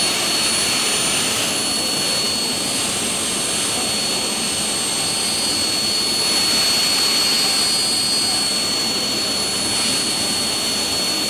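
4-axis CNC machining center for aluminium profiles running: a steady rushing machine noise with a thin, high-pitched whine held on a constant pitch.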